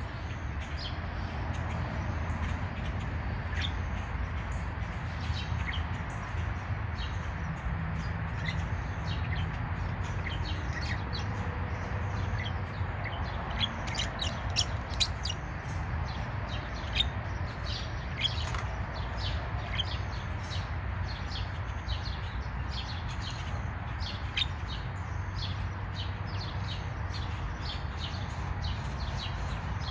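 Small birds chirping, with short high chirps coming in quick runs, thicker from about halfway on, over a steady low background rumble.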